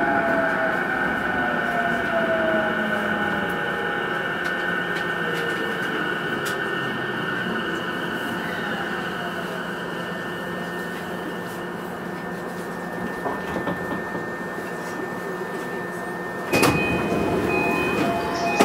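Heard from inside a JR East E233-series electric train as it slows to a stop: the traction inverter's whine falls in pitch over the first few seconds, then a steady electrical whine from the standing train. About 16 seconds in, a sudden burst of noise as the doors open, followed by repeated chime tones.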